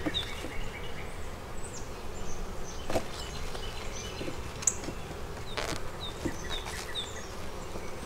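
Honeybees buzzing steadily over an open hive box while frames are pried loose with a metal hive tool, giving a few sharp wooden clicks and knocks.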